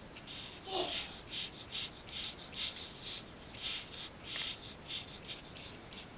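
Flat paintbrush scrubbing across watercolor paper in short, scratchy back-and-forth strokes, about two to three a second, laying down a wet swatch of paint.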